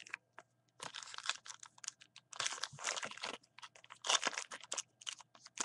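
Plastic trading-card pack wrapper crinkling and tearing as a baseball card pack is ripped open and the cards are handled. The rustling comes in irregular bursts, the longest about halfway through.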